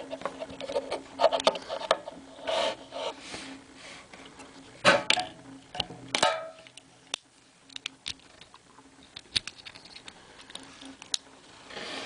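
Small plastic Bakugan toys being handled close up: rubbing and scattered small clicks of plastic against plastic and the table, with two sharper clicks about five and six seconds in.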